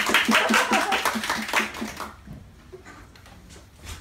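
Small audience clapping in quick, even claps, ending about two seconds in.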